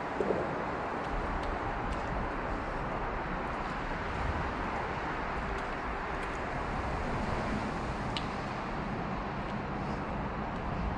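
Steady rumble of road traffic, an even wash of noise with no single vehicle standing out.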